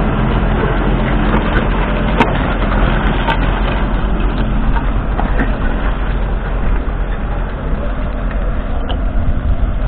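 McCormick X7.680's 6.7-litre six-cylinder diesel engine running steadily under load while the tractor pulls a five-furrow reversible plough through the soil. It grows a little quieter in the second half, and there are two sharp clicks about two and three seconds in.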